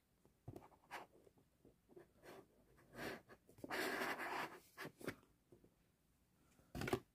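Cardboard slipcase being slid off a Blu-ray box set: light scuffs and taps, a longer scraping slide about four seconds in, and a sharp knock near the end.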